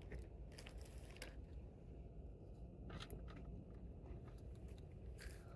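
Faint low room hum with scattered small clicks and rustles, like light handling noise.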